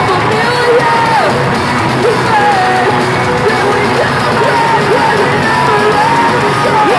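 Live metalcore band playing at full volume: electric guitars, drums and yelled and sung vocals, with a lead melody gliding above the wall of sound.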